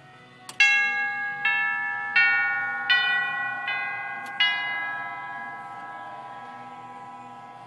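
Tubular chime bells of a 1929 Herschede-made Revere "Roxbury" grandfather clock playing a chime tune: a sharp click, then six struck notes about three-quarters of a second apart. The bells ring on together and slowly die away.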